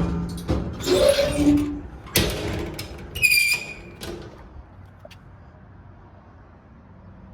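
A door or hatch being handled: several knocks and clatters over the first few seconds, a brief high squeak a little after three seconds in, then only a faint low hum.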